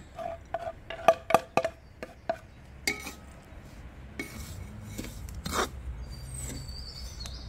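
Metal ladle clinking against a large metal pot and scraping through a dry mixture as it is stirred: a quick run of sharp, ringing clinks in the first couple of seconds, then softer scraping.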